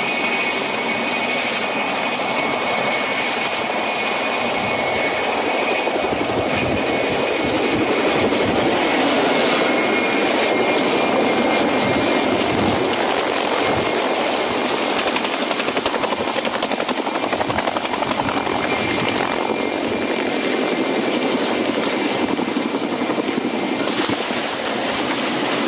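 Helicopter running: a steady wash of rotor and turbine noise, with a thin high turbine whine that stops about ten seconds in.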